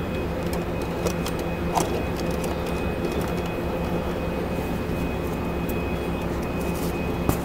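Steady drone of factory machinery with several constant hums, over which come a few light clicks and knocks from handling parts, the sharpest near the end.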